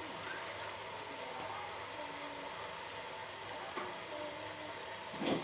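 Pot of kadha (water with jaggery and ajwain) simmering on a gas stove: a steady hiss with low bubbling, and a brief louder sound near the end.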